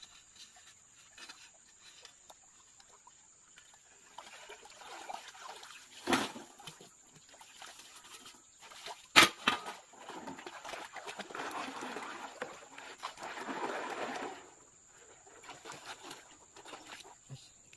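Gold panning in a shallow stream: a hand shovel digging and scraping wet gravel, with two sharp knocks about six and nine seconds in, the second the loudest. This is followed by about four seconds of water sloshing and splashing as the gravel is tipped into a gold pan and washed.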